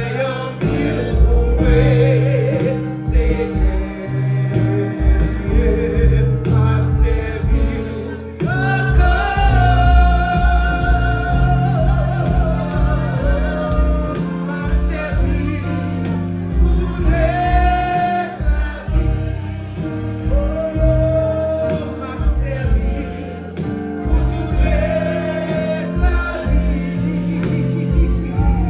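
Gospel music with singing over bass and a steady beat.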